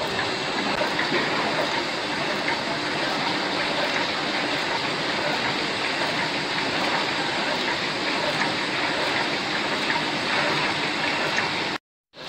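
Sticker printing and cutting machine running: a steady, even mechanical whir of rollers and drive motors as the label web feeds through.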